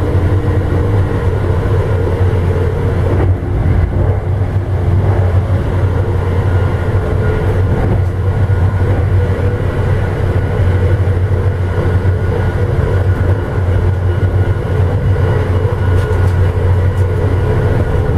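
Amtrak Illinois Zephyr passenger train running at speed, heard from inside the rear car: a steady low rumble with a faint hum over it.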